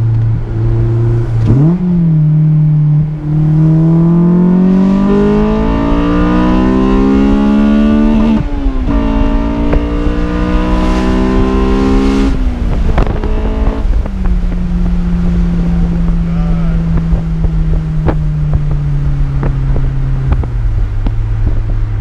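Honda S2000's high-revving four-cylinder engine through a J's Racing 60RS cat-back exhaust, heard from the open-top cabin on a full-throttle pull. The revs climb steeply for about five seconds, drop at an upshift, climb again, then the driver lifts off with a few sharp cracks. After that the note sinks slowly as the car cruises.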